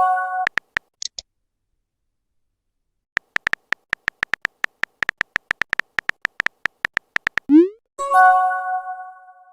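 Phone messenger sound effects. A chime tails off at the start. After a gap of silence comes a quick run of keyboard tap clicks, about seven a second, then a short rising pop and a chime of several notes fading out.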